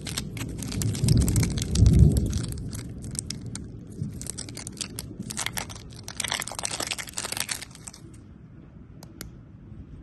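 Close-miked candy eating: dense crunching and crackling with heavy thumps of biting about one and two seconds in, then further bursts of crunching that die down after about eight seconds, leaving a couple of sharp clicks.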